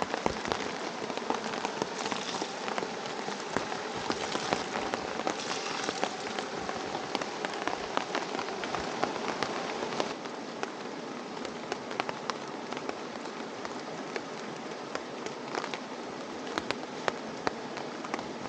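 Steady rain, with many individual drops striking close by over an even hiss; it eases slightly about ten seconds in.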